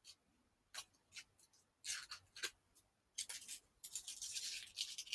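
Faint clicks and rustling, with a longer rustling stretch around three to five seconds in.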